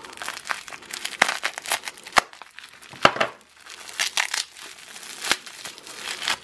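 Plastic bubble wrap crinkling and crackling as it is handled and pulled open by hand, with a few sharper, louder crackles along the way.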